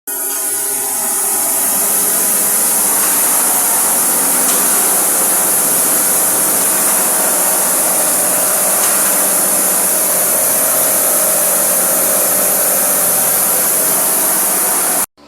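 Maize milling machine running loudly and steadily, a hard rushing hiss over a steady hum, building up over the first second or two and then holding.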